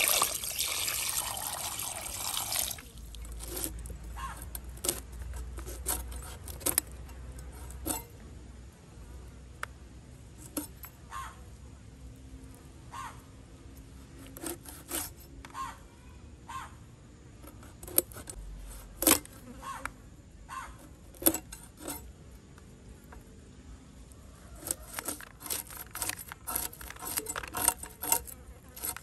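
Tap water running onto fish in a steel bowl for the first couple of seconds. Then a knife scrapes the scales off a pink perch in short, separate rasps, which come thick and fast near the end.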